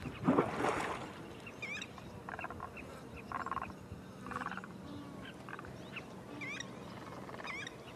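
Wild birds calling over a river wetland: quick sharp chirps that sweep down and then up, heard several times, with short rattling calls between them over a faint steady background.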